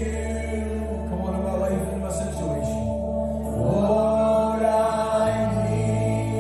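Slow background music: sustained low held notes with singing voices over them. The bass note changes about five seconds in.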